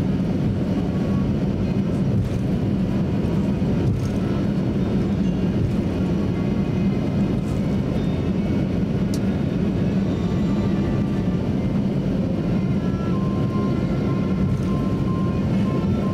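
Cabin noise of a Boeing 737-800 taxiing, its CFM56 engines near idle: a steady low rumble and hum. A faint high steady tone comes in over the last few seconds.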